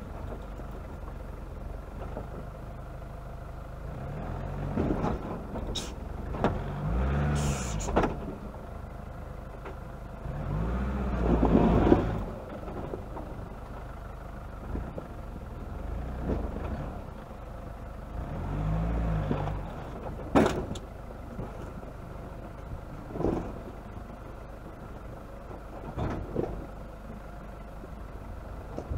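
Off-road vehicle crawling over a rocky track: the engine revs swell up and settle back three times over a steady low running note, with scattered knocks and rattles as the wheels and suspension go over stones.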